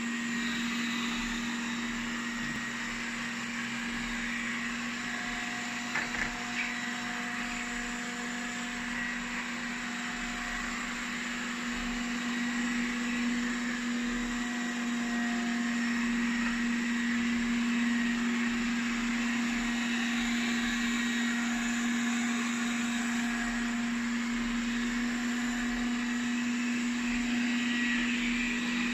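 Roborock S4 robot vacuum running: a steady motor hum over an even fan whoosh, with a couple of brief clicks about six seconds in.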